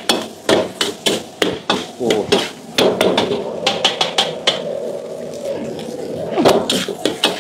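Metal wok spatula and ladle clanking and scraping against a wok while stir-frying fried rice, in rapid knocks about two to three a second, with a lull in the strikes after the middle before they pick up again.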